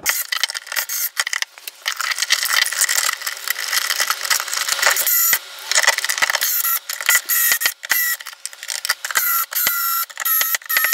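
Wires and in-wall switches being pushed and fitted into a metal electrical box, with plastic and metal rattling, scraping and clicking. In the last few seconds a cordless screwdriver whines in short runs as it drives the switches' mounting screws.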